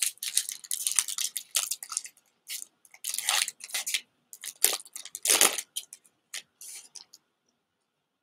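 A Pokémon TCG booster pack's foil wrapper being crinkled and torn open by hand, in a string of sharp, crisp rustles that stop about seven seconds in.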